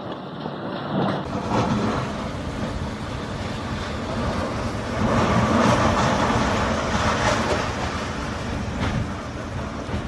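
Storm-force wind blowing hard against the buildings, a steady rushing noise that swells in a stronger gust around the middle.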